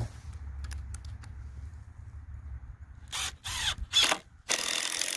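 Cordless Makita impact driver driving a long structural screw into a wooden joist: two short bursts a little after three seconds in, then running steadily from about four and a half seconds.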